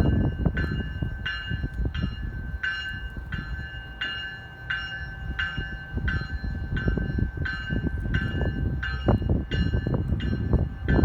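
A railway bell ringing steadily, about three strikes every two seconds, over a low rumble of train and wind noise.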